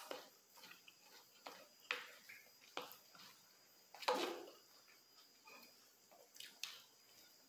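Quiet eating sounds: cutlery scraping and tapping on a plate, with chewing and mouth noises, a few sharp clicks scattered through, the loudest about four seconds in.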